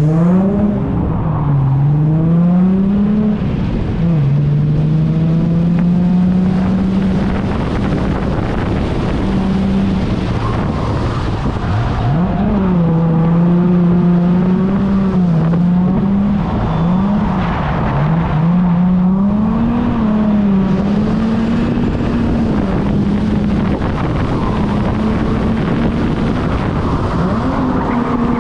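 Holden Commodore Calais V6 engine revving hard while drifting: revs repeatedly climb, hold steady for a few seconds, then drop and pick up again, over continuous tyre and road noise.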